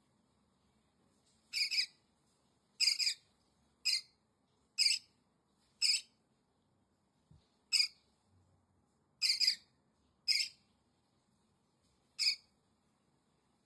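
A parrot giving about ten short, high-pitched calls at irregular intervals, some in quick pairs.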